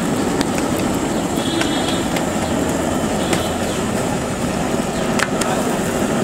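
Steady street traffic noise, with a few light sharp clicks.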